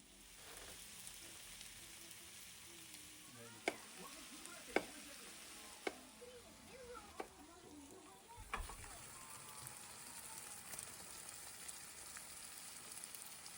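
Food sizzling in a frying pan, with about five sharp knocks of a utensil against the pan partway through.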